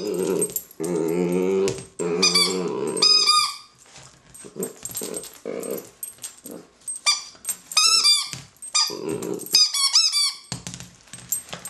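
A purple ball-shaped squeaky toy squeaking in quick runs of short high squeaks as a dachshund puppy bites and presses it, between low growls from the puppy.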